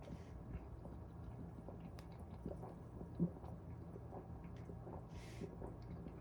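Faint mouth sounds of eating and drinking: quiet chewing with small wet clicks, a soft knock about three seconds in and a short hiss near the end.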